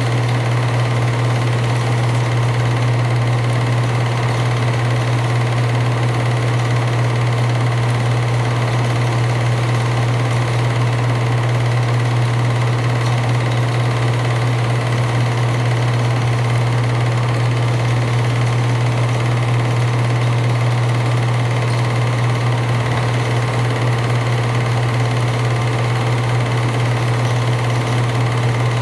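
8mm film projector running: a loud, steady motor hum and mechanical whir that does not change.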